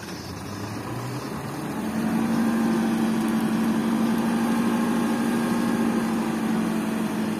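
Isuzu Elf dump truck's diesel engine revving up over the first two seconds, then holding a steady raised speed to drive the hydraulic tipping pump as the bed lifts to dump its load of soil.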